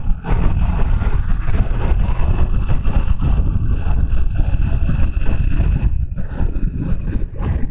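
Loud, steady wind buffeting on the microphone of a Triumph Tiger Sport 660 ridden at speed, with the bike's three-cylinder engine running underneath.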